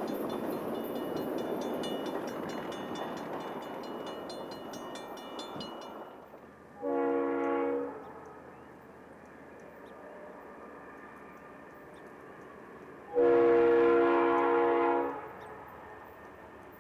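The noise of a passing train fading away, with a grade-crossing bell ringing rapidly, cuts off about six seconds in. Then a locomotive air horn sounds a multi-note chord twice for the crossing, a short blast and then a longer, louder one of about two seconds, as a train approaches.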